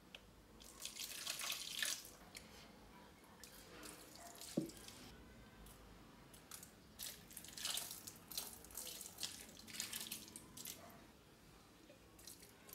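Water poured in several short trickles from a small glass jar into the soil of a potted snake plant, with one brief falling glug about a third of the way in.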